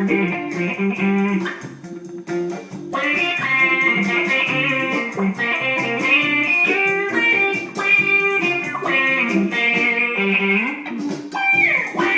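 Guitar playing a blues line of plucked notes, with a sliding pitch glide near the end.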